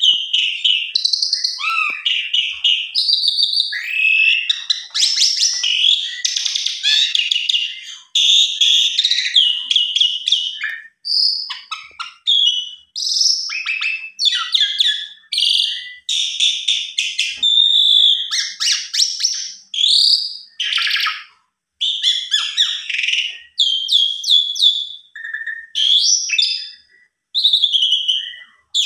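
Asian pied starling singing a long, varied song of whistles, chirps and harsh buzzy notes, the phrases coming one after another with short breaks: an excited bout of song.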